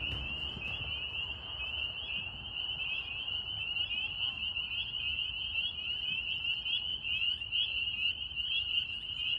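Dense chorus of spring peepers: many high, short rising peeps overlapping into one continuous shrill ringing.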